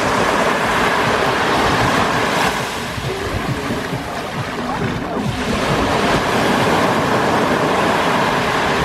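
Mediterranean sea waves breaking and washing up a beach, a continuous surf noise that swells, eases off a little around the middle and builds again.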